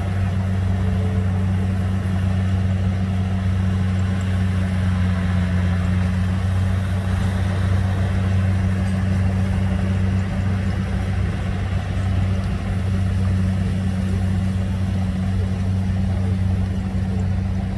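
Kubota DC70 rice combine harvester's diesel engine running steadily while it cuts and threshes rice: a deep, even drone that holds at one speed throughout.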